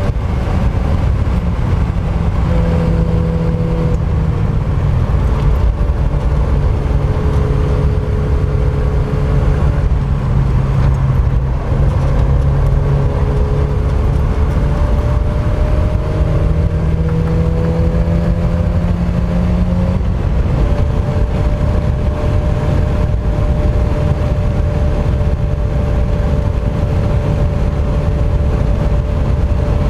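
Mk1 Mazda MX-5's four-cylinder engine running hard on track, its note stepping and gliding up and down in pitch with throttle and gear changes, over a heavy low rumble.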